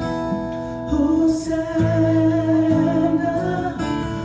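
Live worship music: acoustic guitar strumming under held sung notes, with the next sung line entering near the end.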